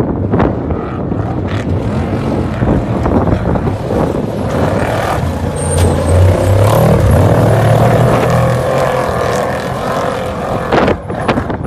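Two trophy trucks racing past at speed, their engines running hard at high revs and loudest about six to eight seconds in, as they pass close side by side.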